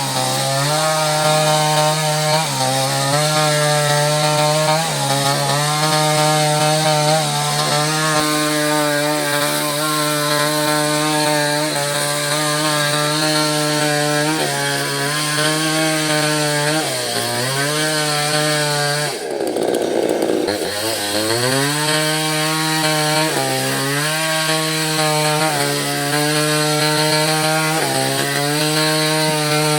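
Small chainsaw cutting lengthwise through a mahogany log, its engine held at high revs. The pitch sags briefly every couple of seconds as the chain takes load. About two-thirds of the way through it drops away sharply and then revs back up.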